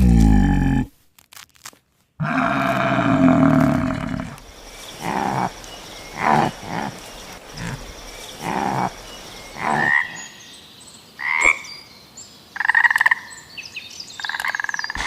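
A run of different animal calls, one after another: a deep, loud call about two seconds in, then a string of shorter calls, and higher-pitched calls near the end.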